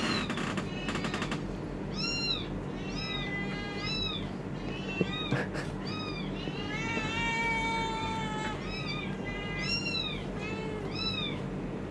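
Kitten mews played back from a recorded sound file: repeated short, high-pitched calls that rise and fall, about one or two a second, with one longer call about seven seconds in. A sharp tap sounds about five seconds in.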